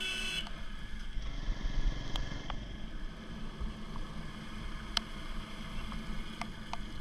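Bajaj Pulsar NS200 motorcycle riding along at a steady pace: low engine rumble with road and wind noise on the microphone. There is a brief high tone at the very start and a few sharp clicks, the loudest about five seconds in.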